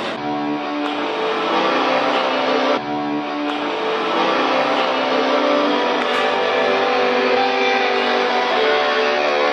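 Live rock band music: electric guitar chords held and ringing with no drum beat, with a brief break about three seconds in.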